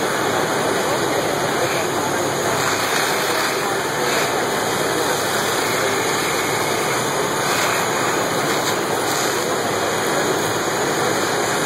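A fire truck's engine running steadily, mixed with the rush of water from the hoses.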